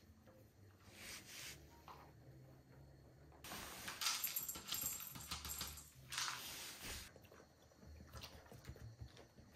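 Handling noise: rustling and light knocks as glass food and water bowls on wooden stands are picked up and set down on a floor mat. The noise is loudest from about three and a half to seven seconds in, and faint before and after.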